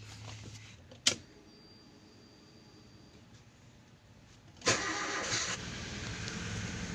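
Freshly rebuilt Toyota Avanza engine cranking and catching about two-thirds of the way in, then running steadily. A single sharp click comes about a second in.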